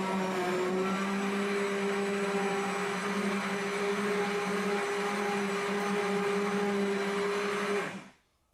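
Hand-held immersion blender running steadily in a cup of liquid, whipping it to froth, with an even motor hum; it is switched off and stops abruptly near the end.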